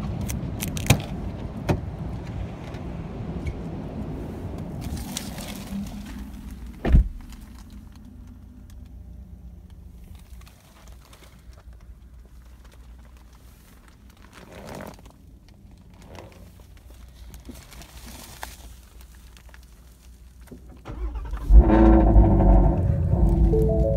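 Ford Shelby GT350R being entered and started: a few clicks of the door, a door shutting with a thump about seven seconds in, then a quiet cabin until its 5.2-litre flat-plane-crank V8 fires about twenty-one seconds in and runs loudly with a deep rumble, with a few tones sounding near the end.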